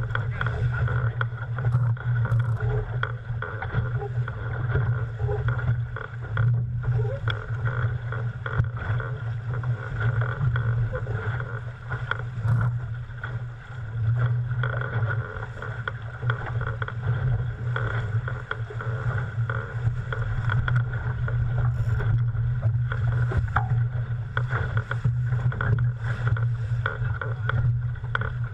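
Steady rushing of wind and water around an International 14 sailing dinghy under way, with a constant low drone.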